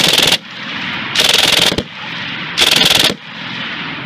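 C9 light machine gun (the Canadian 5.56 mm FN Minimi) firing short full-auto bursts of about half a second each, roughly every one and a half seconds, with echo ringing on between bursts. One burst ends just after the start, two more follow, and another begins at the very end.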